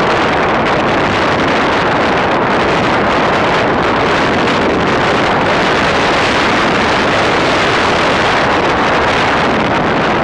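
Loud, steady wind rushing over the microphone while riding a moving motorcycle, with no engine note standing out.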